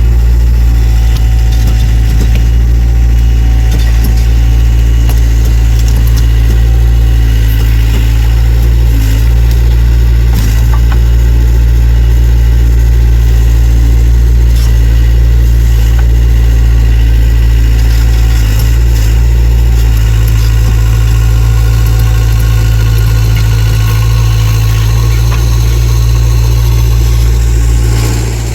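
Takeuchi TL26 compact loader's diesel engine running steadily and loudly, with a few short knocks over it; the loudness drops near the end.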